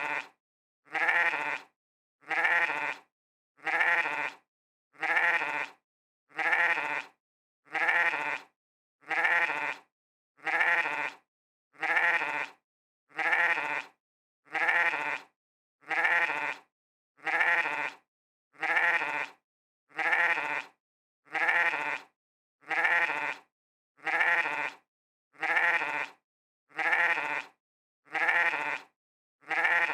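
A sheep bleating 'meh' over and over: short bleats about every second and a half with silence between, each call the same.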